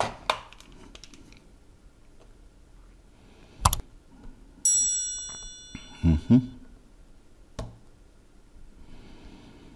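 Small metal clicks and taps of a fine screwdriver working at a radio potentiometer's tabs: a few sharp ticks spread a few seconds apart. About five seconds in there is a brief high ringing chime, then a couple of soft knocks.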